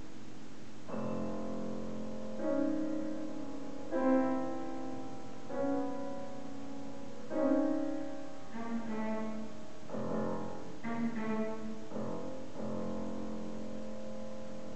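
Grand piano and cello playing a slow classical passage. Piano chords are struck every second or two, with a quicker run of notes near the middle, while the bowed cello sounds over them.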